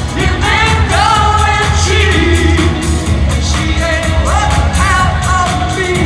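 Live pop music in an arena: a lead singer's voice over a steady dance beat and heavy bass, recorded from the audience.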